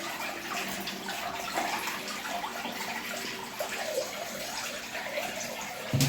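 Dirty wash water draining out of a single-tub washing machine through its outlet pipe, a steady rush of running water.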